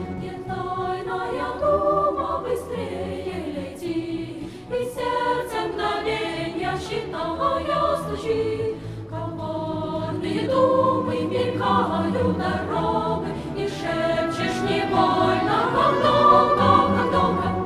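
Background music: a choir singing with instrumental accompaniment.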